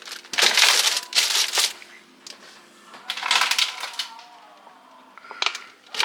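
Plastic produce bags crinkling and rustling in several short bursts as bagged salad and vegetables are packed into a fridge drawer.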